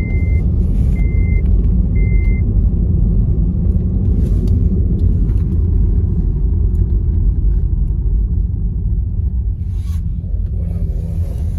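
Steady low rumble of a vehicle driving, heard from inside it. In the first two seconds an electronic beep sounds three times, about once a second, then stops.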